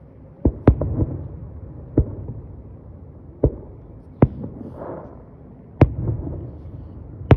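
Aerial fireworks shells going off: a string of sharp bangs at irregular intervals, each trailing off in a short low rumble.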